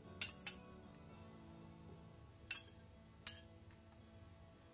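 A metal fork clinking against a bowl and a baking tray while picking up cherries: four short clinks, two together at the start and two more a few seconds in, over faint background music.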